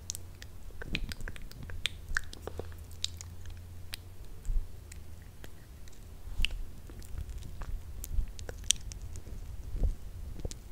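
Close-miked wet mouth sounds: irregular sticky lip smacks and tongue clicks from lips coated in lip gloss, over a steady low hum.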